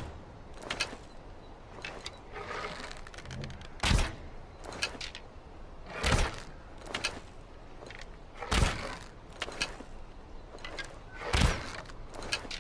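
Longbow shooting: five sharp thunks about two to three seconds apart, with lighter clicks and knocks between them.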